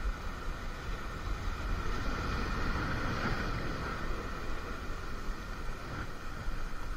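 Wind buffeting the microphone over a wash of sea noise, with a faint steady whine that swells about three seconds in.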